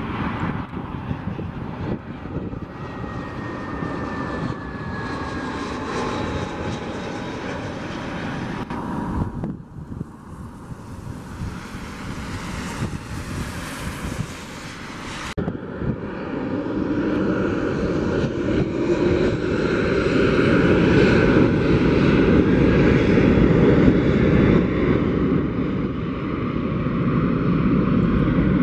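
Airbus A320-family jet airliner passing low on approach, its engines sounding with a whine that falls in pitch. After a cut comes a stretch of hiss. After a second cut, a Boeing 737's jet engines set up a louder, steady rumble that builds over several seconds.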